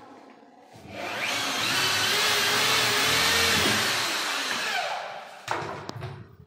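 Electric drill driving a screw into a wall cabinet, its motor whine running for about four seconds and dropping in pitch as it slows near the end. Then a sharp clack and a couple of knocks.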